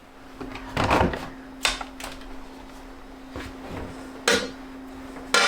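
About five separate knocks and clunks of household objects being handled, with a faint steady hum underneath.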